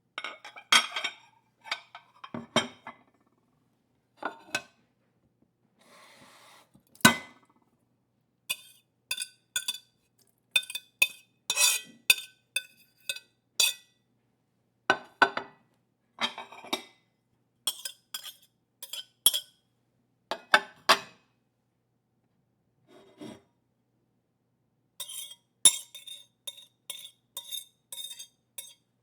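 Kitchen plates knocking and clinking against each other in an irregular string of short clatters, some leaving a brief ring, with a faint scrape about six seconds in.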